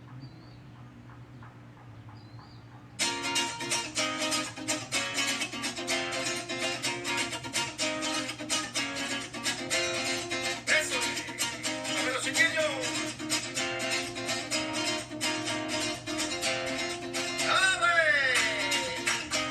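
Background music starting abruptly about three seconds in: a fast, rhythmic strummed acoustic guitar, with a couple of falling swooping notes in the second half.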